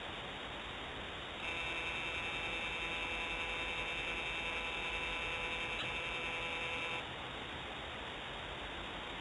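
Steady whine of a remote pan-tilt camera's motor as it pans, starting about a second and a half in and cutting off suddenly about seven seconds in, with a faint tick near its end. A constant hiss runs underneath.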